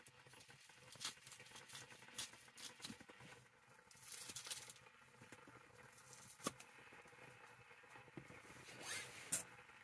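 Faint taps and cuts of a knife slicing and dicing a shallot on a split-log wooden cutting board, scattered irregularly, with one sharper knock about six and a half seconds in.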